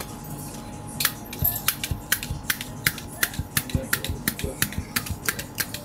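A handheld spring-loaded blade meat tenderizer pressed again and again into a thick raw pork loin slice on a plastic cutting board. It makes a quick run of sharp clicks, about four to five a second, starting about a second in.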